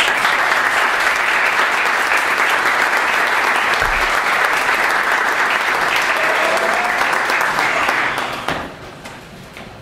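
Audience applauding steadily for about eight seconds, then dying away.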